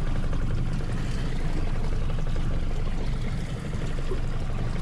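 Outboard motor running in gear at low speed, with water splashing and gurgling along the boat's hull; a steady mix at an even level.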